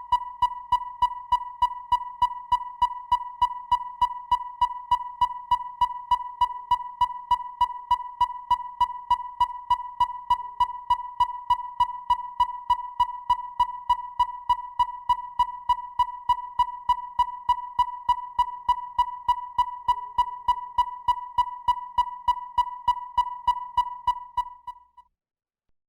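Synthesized electronic sound effect: one steady, fairly high-pitched tone pulsing rapidly and evenly, several blips a second. It fades and cuts off about a second before the end.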